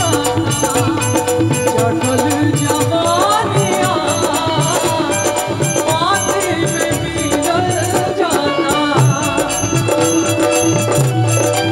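Live Bhojpuri folk song: a female voice sings over a band, with drums and a rattling shaker keeping a steady, busy beat and a melody that swoops upward several times.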